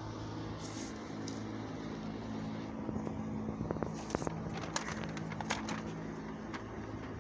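A steady low hum runs throughout. In the middle a few seconds of scattered crackles and ticks sound as the vinyl sticker and its backing are handled on the window.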